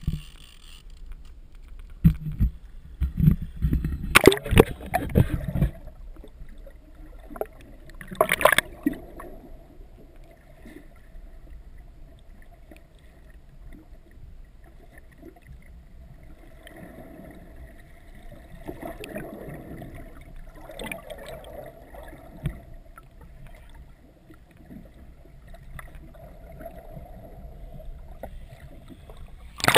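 Loud splashes and knocks during the first nine seconds as an action camera is plunged into the sea, then steady muffled water noise heard from below the surface.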